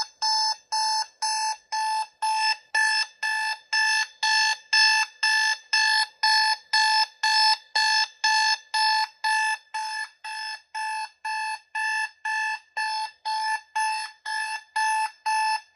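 Electronic alarm-clock beeping played through a portable Bluetooth speaker: an even run of short beeps, about two a second, held close.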